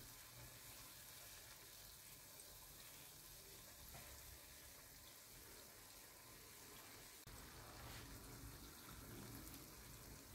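Faint, steady sizzle of batter fritters deep-frying in hot olive oil.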